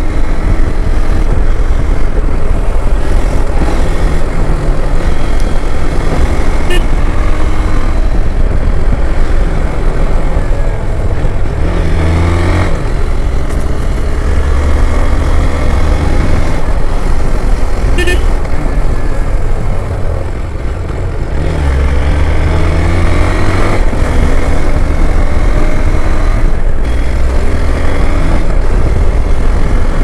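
Motorcycle ridden along a mountain road: the engine running under steady riding with heavy wind noise on the bike-mounted microphone. Two short horn toots, about seven seconds in and again about eighteen seconds in.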